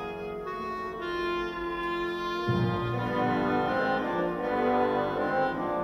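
Instrumental background music of sustained held notes, with a fuller, lower part coming in about two and a half seconds in.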